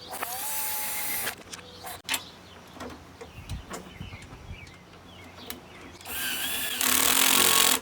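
Power drill with a nut-driver socket running 1/2-inch nuts onto a mower's deck bracket: two runs of motor whine, the first about a second long with its pitch rising then holding, the second near the end and louder. Small metal clicks and knocks of the parts being handled come between the runs.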